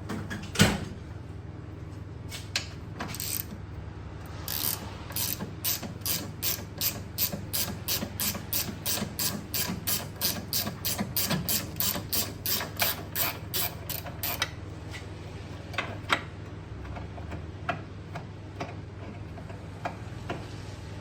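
Hand ratchet wrench clicking in a steady run of strokes, about three clicks a second for some ten seconds, as a bolt is turned; a few single clicks and knocks before and after, over a steady low hum.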